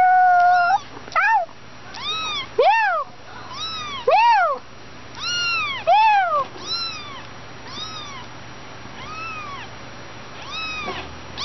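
Young kitten mewing over and over, high-pitched mews that each rise and fall, about one a second; the first is long and held, and the later ones grow softer.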